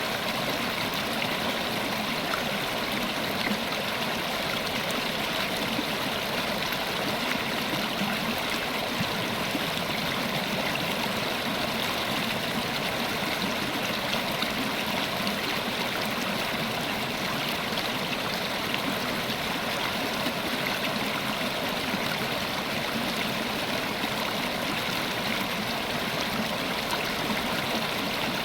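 River water flowing steadily over rocks, a continuous even rush with gurgling.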